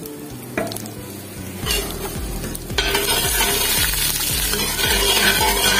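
Whole spices (dry red chillies, cumin, fennel, coriander seeds, cinnamon and bay leaves) sizzling in hot oil in a stainless steel pot: the tempering (tadka) for a sweet tamarind chutney. A few light clicks near the start, then the sizzle grows louder about three seconds in.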